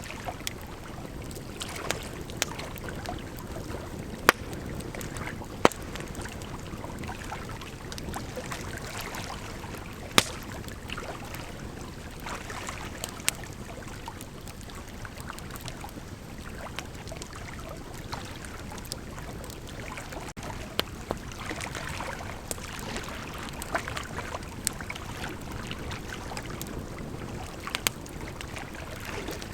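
Bonfire burning: a steady rush of flames with irregular sharp crackles and pops, a few of them loud snaps.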